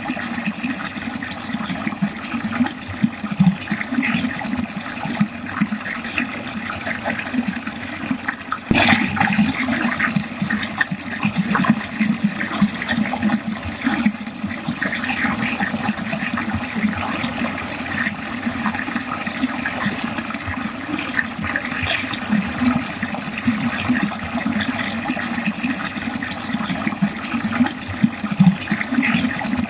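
Water flowing continuously down a drain. A single sharp click comes about nine seconds in.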